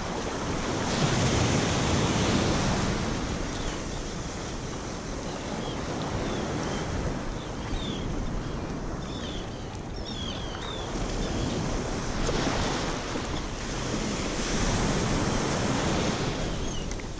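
Surf breaking and washing up the beach, with wind on the microphone; the wash swells loudest about a second in and again near the end. Faint short high chirps of seabirds calling overhead come and go.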